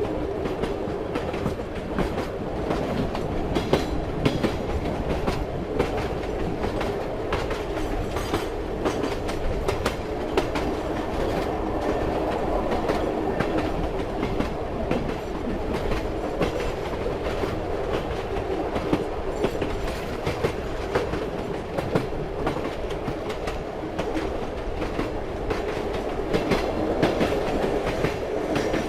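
Train in motion: steady rumble of the carriage with the clickety-clack of wheels knocking over rail joints.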